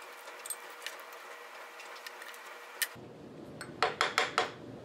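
Light metallic clicks and taps as the hold-down clamps on a milling machine's rotary table are worked loose. Near the end come about four sharp metal clinks in quick succession as the clamp hardware and the aluminum workpiece are handled and lifted off the table.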